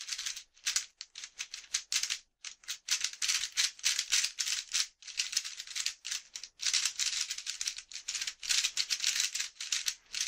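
The plastic layers of a Gans III v2 3x3 speedcube click and clatter as it is turned fast, in quick runs of turns broken by short pauses. These are the cube's first turns out of the box, which feel pretty fast.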